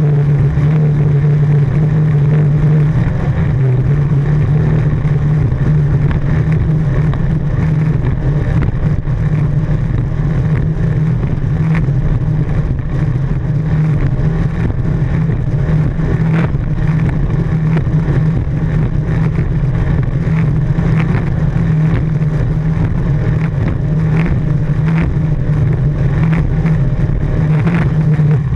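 Jersey speed skiff's inboard engine running at a steady high speed, one unchanging drone, with the rush of wind and spray over the bow.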